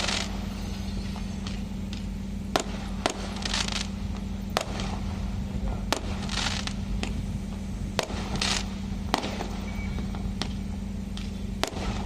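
Aerial fireworks going off: a string of sharp bangs, irregular and about one a second, with bursts of high crackling after several of them, over a steady low hum.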